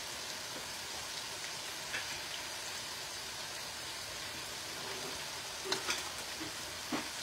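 Chicken, sausage and mushrooms sizzling steadily in sausage grease in a pot, with a few light clicks toward the end.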